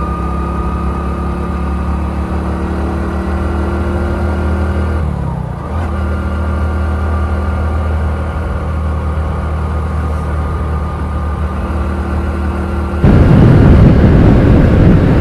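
Motorcycle engine running at a steady cruise, with a brief dip in the engine note about five seconds in. About thirteen seconds in, a loud, even rush of wind on the microphone at riding speed suddenly takes over.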